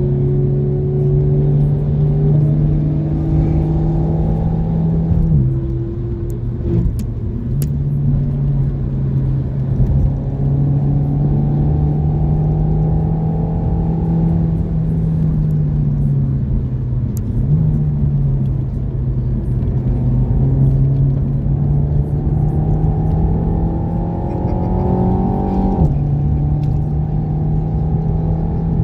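Renault Mégane RS Trophy's turbocharged four-cylinder engine pulling hard, heard from inside the cabin over tyre and road noise. Its pitch climbs steadily and drops sharply at gear changes about five seconds in and again near the end, and sags briefly in the middle.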